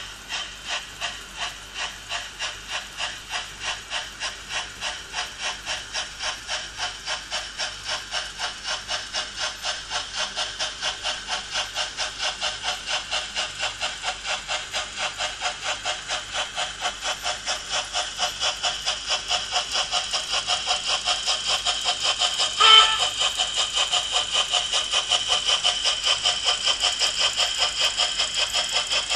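Märklin H0 model steam locomotive's sound decoder chuffing steadily as it hauls a heavy freight train, the beats quickening from about two a second to about three as it gathers speed. A short whistle toot comes about 23 seconds in.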